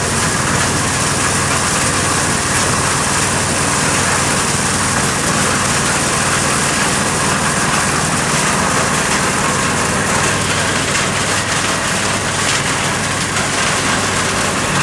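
Engine-driven corn sheller running steadily: a low engine hum under a dense, even wash of threshing noise.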